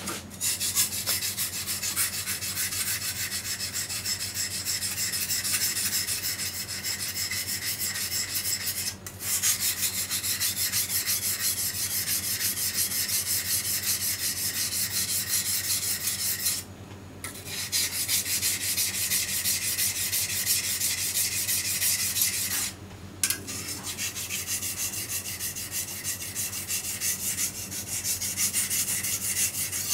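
Steel kitchen knife, a western-style meat knife, stroked rapidly back and forth on a wet whetstone in the finishing stage of sharpening: a steady gritty rasping. It stops briefly three times, about 9, 17 and 23 seconds in.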